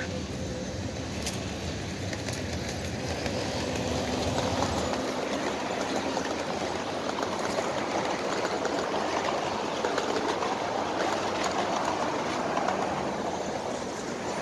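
Freight train cars rolling past on the track: a steady rumble of steel wheels on rail, with a few faint ticks. A pickup truck drives by close in front about halfway through, adding a broad swell of road noise.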